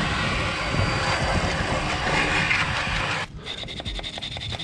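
Wet-and-dry vacuum cleaner running, its hose nozzle sucking dust out of a drilled hole in a concrete footing. It cuts off suddenly about three seconds in.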